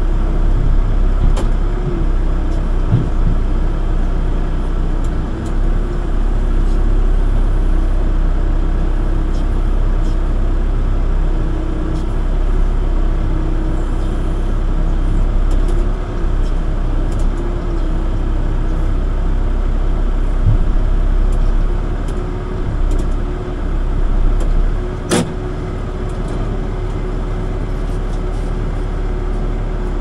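Backhoe's diesel engine running steadily while digging, its pitch rising and falling a little. One sharp knock about 25 seconds in.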